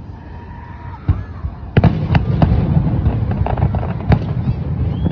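Aerial fireworks shells bursting: a single bang about a second in, then from under two seconds in a dense, continuous run of booming bursts and crackling.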